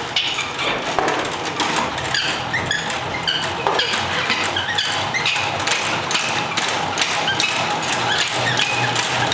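Hand-cranked centrifugal honey extractor being spun fast with the lid closed: its crank gearing clicks and squeaks rapidly and steadily.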